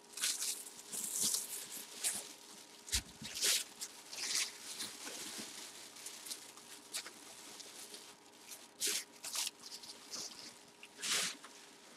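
Clear plastic bag and bubble wrap crinkling and rustling in irregular bursts as a football helmet is handled in its packaging, with a light knock about three seconds in.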